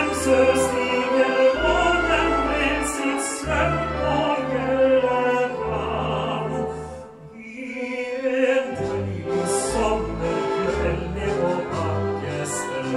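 A male singer performing a song in classical style with orchestral accompaniment, held bass notes beneath the voice, easing briefly about seven seconds in before the music swells again.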